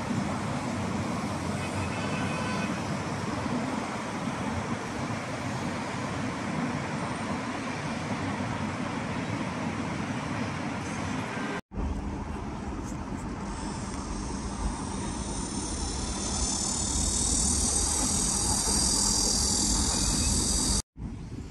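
Steady road traffic noise from busy multi-lane city roads below, a constant wash of passing cars and buses. Partway through, the sound changes abruptly to a low rumble, and in the last few seconds a steady high-pitched hiss grows louder on top of it.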